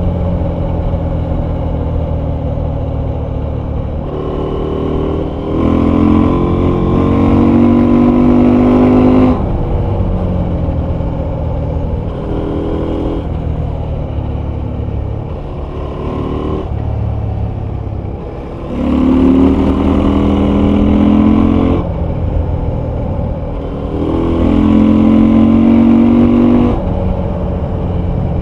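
Husqvarna Norden 901's parallel-twin engine and exhaust while riding at speed. It runs steadily and swells louder for two to three seconds at a time under throttle, several times.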